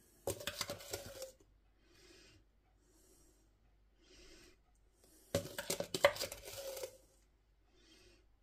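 A metal spoon scraping and clinking against a container as it scoops thick sugar glaze, in two bouts: about a second near the start and a second and a half past the middle.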